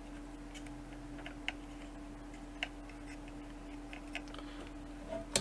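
Faint scattered clicks from a Bside ACM91 clamp meter being handled, its plastic jaw and buttons worked around a power cord, over a faint steady hum.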